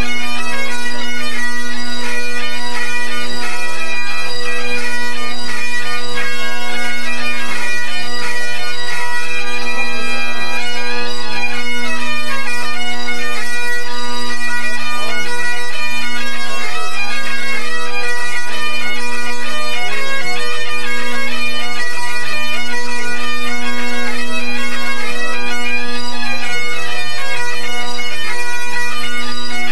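A pipe band's Great Highland bagpipes playing together at tune-up: the drones hold a steady low chord while the chanters play a melody above it.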